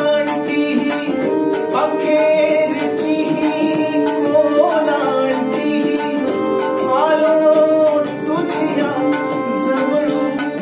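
A man singing a Marathi devotional song in long, gliding phrases over steady held-note accompaniment, with a light percussion beat of regular jingly strikes.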